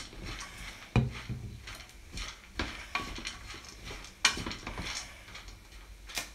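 Glass pan lid clattering against a metal pan: several sharp knocks and clinks, the loudest about a second in and another about four seconds in.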